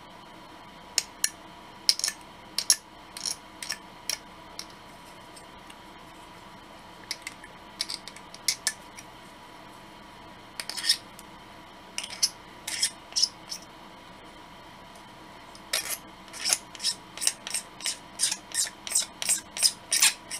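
Hobby knife blade edge scraped along a plastic model-kit part to smooth it off, in short scraping strokes. The strokes come in scattered bursts at first, then in a quicker run of about two to three a second over the last few seconds.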